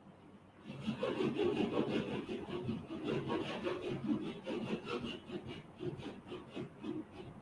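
Scratchy rubbing noise over a video-call microphone line, starting about a second in and going on unevenly.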